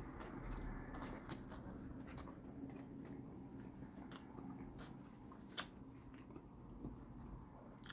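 A person chewing mouthfuls of a chicken torta sandwich, close to the microphone: faint wet chewing with scattered small mouth clicks.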